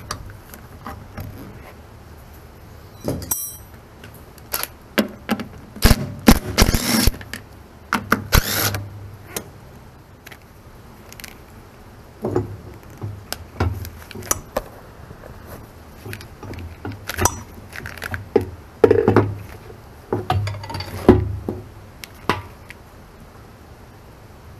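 Irregular metal clinks, knocks and rattles of tools and fittings as the bolted cover plate of an excavator's hydraulic oil tank is unscrewed and handled, with the loudest cluster of knocks about six to nine seconds in.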